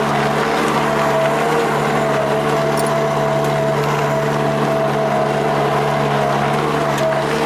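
An engine or motor running steadily at a constant pitch.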